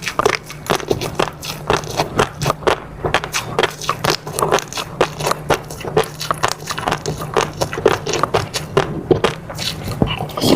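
Close-miked eating: chewing with rapid wet clicks and mouth smacks, several a second, with no pause. A faint steady low hum sits underneath.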